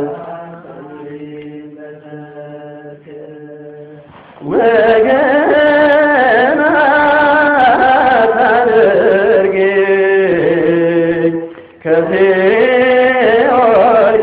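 Ethiopian Orthodox hymn (mezmur) singing. It opens softly on a held note, swells into full, melismatic singing about four and a half seconds in, breaks off briefly near the end, and resumes.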